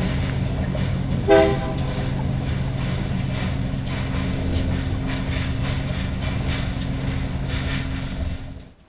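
A train running near the river: a steady low rumble with an irregular clatter of clicks like wheels over rail joints, and a short horn toot about a second and a half in. The sound cuts off just before the end.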